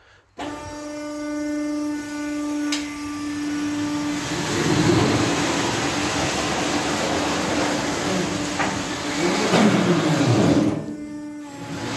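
Carpathian SMFA 100 band sawmill starting up and running without a log: a steady motor hum starts abruptly about half a second in, joined after a few seconds by a louder whirring mechanical noise that shifts in pitch and dips briefly near the end.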